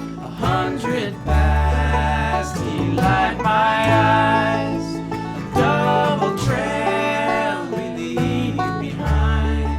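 Bluegrass band playing an instrumental passage on fiddle, banjo, guitar and double bass, with long held melody notes that slide between pitches over a steady bass line.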